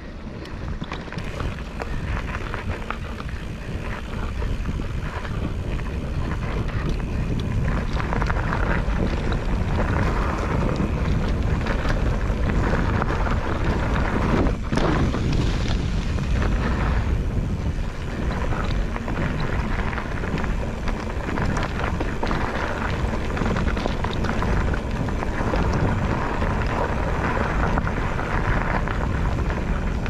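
Wind buffeting the microphone over the rumble and rattle of a Nukeproof Scout hardtail mountain bike riding a rocky, rooty trail. The noise builds over the first several seconds, then holds steady, with a sharp knock about halfway through.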